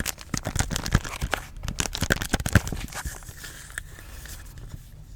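Rapid close-up tapping with a crinkly, crackling edge, a dense run of sharp taps that thins out after about three seconds into lighter, fainter crackles.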